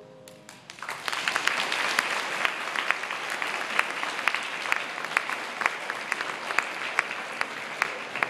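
Audience applauding at the end of a choir song: a few scattered claps, then applause swelling within about a second and continuing steadily, tapering slightly near the end.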